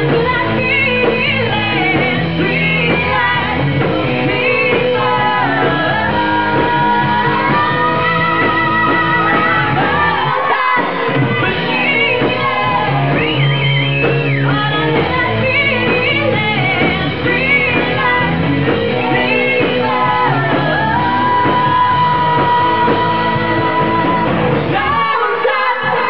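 Live rock band playing, with a man and a woman singing loudly over electric guitars, bass and drums. The music breaks off briefly near the end.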